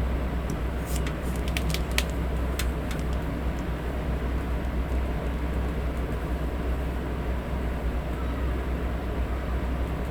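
Steady electric fan noise with a low rumble, with a quick run of light clicks in the first few seconds.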